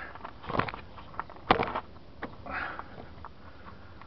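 Handling noises while working in a car's engine bay: a few light clicks and rustles, with one sharper knock about a second and a half in.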